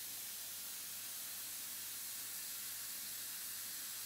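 Steady hiss of the vacuum pump pulling air through the home-made vacuum clamp fixture, which is still leaking at the seal, over a faint low hum.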